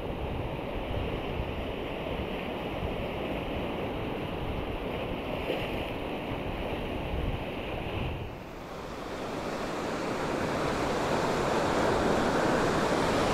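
Surf washing in over a rocky, pebbly shore: a steady rush of breaking waves. It eases briefly about eight seconds in, then swells louder with the next surge toward the end.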